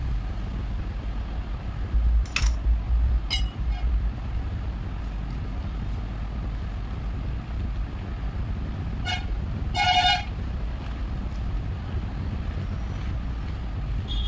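A steady low background rumble with a few short horn-like toots, the loudest about ten seconds in.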